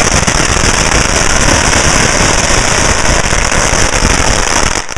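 Strings of firecrackers going off in a dense, continuous rapid-fire crackle of bangs, starting to thin into separate cracks at the very end.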